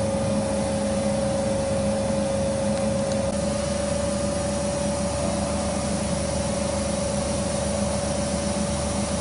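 Griggio GB 5-8RA edge banding machine running idle with no panel passing through: a steady mechanical hum with a constant whine over it.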